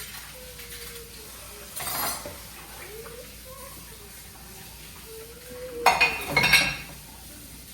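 Dishes and utensils clinking in a kitchen: a short clatter about two seconds in, then a louder run of clinks and knocks around six seconds in.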